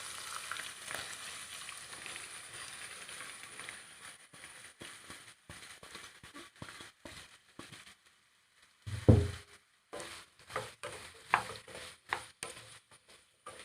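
Chopped onions sizzling in a frying pan as they are sautéed; the sizzle fades after a few seconds, leaving a spoon stirring and scraping in the pan with scattered clicks. A loud thump comes about two-thirds of the way through.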